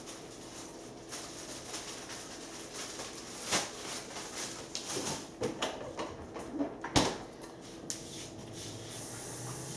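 A few light knocks and clicks of kitchen things being handled, the sharpest about seven seconds in.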